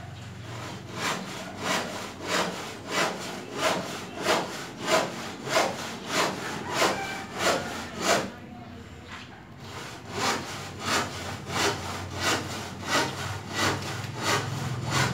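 Rhythmic rasping strokes, about three every two seconds, like sawing or scraping. They pause for about two seconds midway, then resume.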